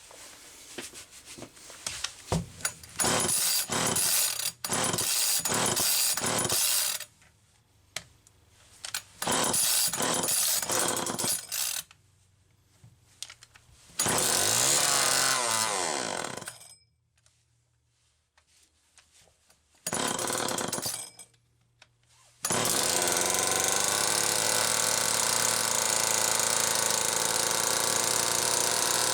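Homelite XL-2 two-stroke chainsaw being pull-started: a string of starter-cord pulls, then the engine fires, runs for about two seconds and dies away, and catches briefly again. About 22 seconds in it starts and keeps running fast and steady, racing because the idle speed screw is turned almost all the way in.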